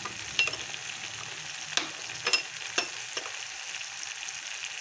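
Thick onion-tomato masala gravy sizzling in a kadai, a steady frying hiss, with a wooden spatula stirring and knocking against the pan in a handful of sharp clicks.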